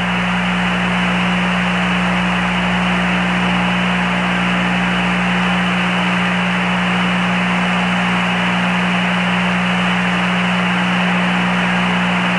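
Steady radio static hiss on the Apollo 11 air-to-ground voice downlink, with a steady low hum running under it.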